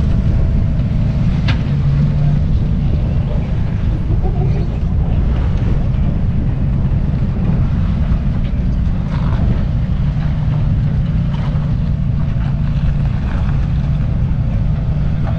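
Off-road truck's engine working under load as it crawls up a steep rock slab, heard from a distance with low rumble from wind on the microphone.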